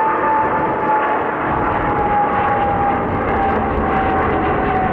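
Boeing 777's twin jet engines at takeoff power as it climbs out: a steady roar with a high whine that slowly falls in pitch.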